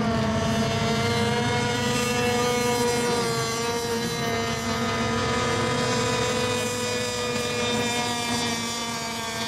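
Radio-controlled racing boat engines running on the water: a steady high-pitched whine whose pitch wavers slightly.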